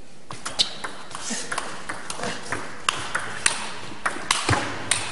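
Table tennis rally: the ball clicking sharply off the bats and the table, about three hits a second.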